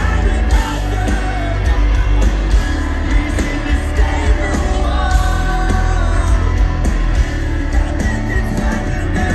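Rock band playing live through a stage PA, heard from the crowd: a male lead singer over electric guitar, bass and drums, with heavy bass.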